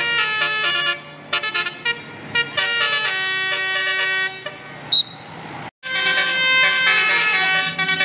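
Tour bus's Basuri telolet horn playing a quick melody of stepped, sustained tones. A short sharp peep about five seconds in, the sound drops out for a moment just before six seconds, then the horn tune resumes.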